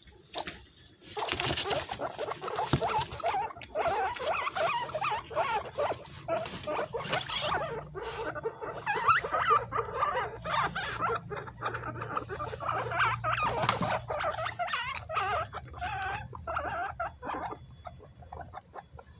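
Several guinea pigs squeaking in a dense overlapping run of short high calls as they scramble for banana, with scuffling clicks among them. The calls thin out over the last few seconds.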